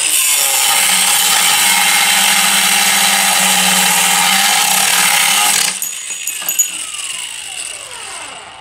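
Angle grinder with a cutoff wheel cutting through a metal shifter rod, a loud, steady whine with grinding noise. About five and a half seconds in the cut stops and the motor spins down, its pitch falling, with one short clink along the way.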